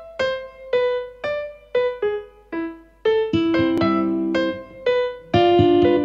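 Background music: a melody of short, quickly fading notes at about two a second, with fuller held chords joining a little after three seconds in.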